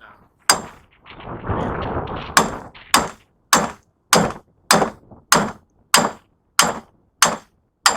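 Hammer blows on steel, about ten steady, ringing strikes roughly 0.6 s apart, driving a wedge or chisel into a scrap electric motor to cut out the copper windings. About a second in there is a short scraping shuffle before the steady strikes begin.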